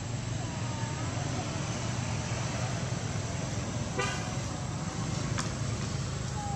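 Steady low rumble of road traffic, with a brief high-pitched squeal about four seconds in.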